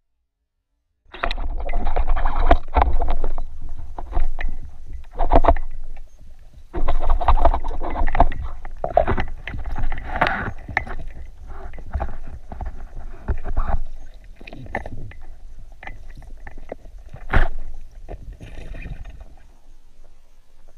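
Irregular water sloshing and splashing with many knocks and clicks, starting about a second in and fading toward the end, from water moving around a spearfishing diver's camera.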